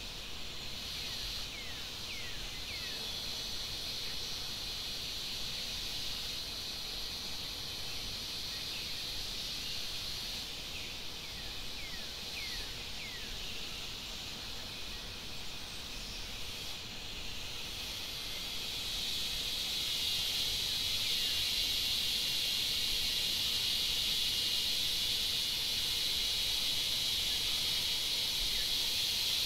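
Insects droning as a steady high-pitched hiss, growing louder about two-thirds of the way through. Several brief falling chirps come in the first half.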